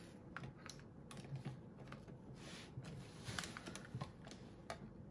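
Faint, irregular light clicks and taps of a screwdriver working on the buttstock of an airsoft rifle, a few each second.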